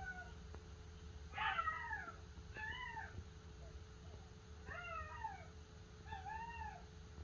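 Teacup Yorkie puppy crying in her crate at night: about five faint, high whines that rise and fall, every second or two. It is the distress crying of a new puppy left alone in the crate. A faint steady hum runs underneath.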